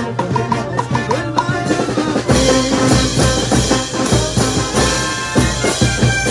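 Live brass band of trumpets, trombones, sousaphones and drums playing; about two seconds in, the full band comes in louder with a heavy bass underneath.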